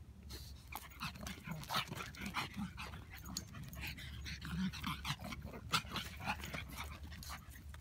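A black pug puppy and another black dog playing, with dog breathing and small vocal sounds over many short crunches and scuffs on dry, pebbly dirt.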